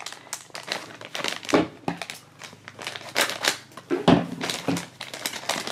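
Foil blind bag crinkling as it is opened and handled, an irregular run of crackles with a few louder crinkles.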